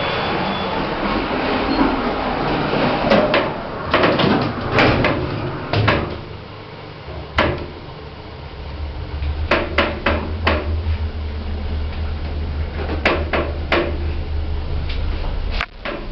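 Modernised passenger lift in use: scattered clunks and knocks of the doors and car, then a steady low hum from about six seconds in as the car travels.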